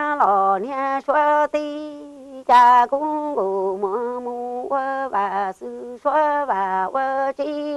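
A solo voice singing unaccompanied in Hmong sung-poetry style (kwv txhiaj), long held notes that waver in pitch, sung in phrases with short breaks for breath.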